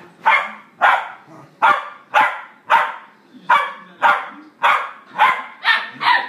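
A dog barking in play, short sharp barks at a steady pace of about two a second, a dozen or so in a row.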